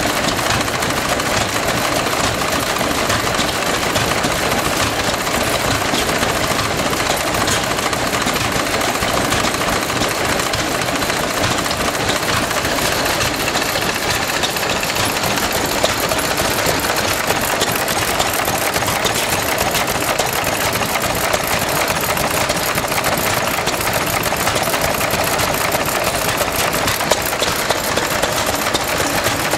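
Several vintage stationary engines running together, giving a steady, fast mechanical clatter of firing strokes and valve gear.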